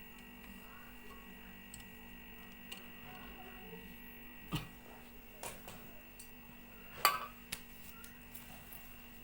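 Faint steady hum of a Polytron single-door refrigerator's compressor running after a refrigerant recharge, with a few sharp metal clicks and taps of tools, the loudest about seven seconds in.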